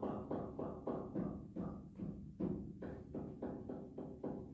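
Steinway grand piano played slowly in an even, repeated rhythm, about three to four notes a second in the middle-low register, as a hand-separation rhythm drill. The notes stop near the end.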